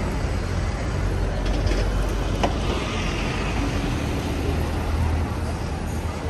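City street traffic: vehicles running past with a steady low rumble under a general noise of the street, and one short sharp click about two and a half seconds in.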